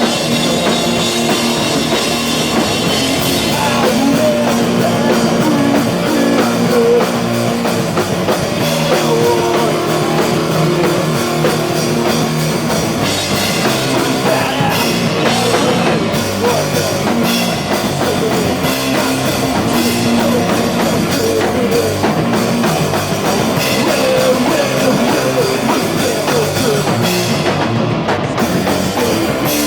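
Rock band playing live, loud and steady throughout: drum kit and electric guitar.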